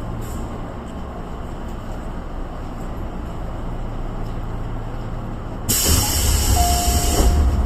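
Tobu 8000 series train with a steady low rumble. About two-thirds of the way in comes a sudden loud hiss of compressed air lasting about a second and a half, and the rumble grows louder with it.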